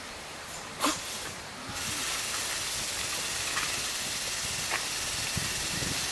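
A sharp click about a second in, then a steady high hiss that sets in suddenly a little later and carries on evenly.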